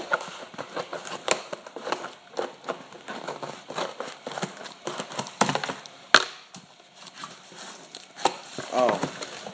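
Packaging tape and a cardboard box being pulled and torn open by hand: irregular crinkling, rustling and clicks, with one sharp snap about six seconds in. A brief wordless vocal sound near the end.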